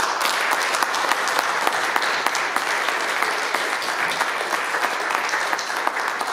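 A congregation applauding steadily, dense overlapping hand claps.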